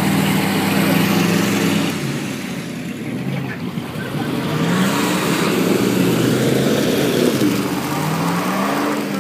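Chevrolet K5 Blazer engine under load in deep mud, holding steady revs, then revving up and back down twice, its pitch rising and falling.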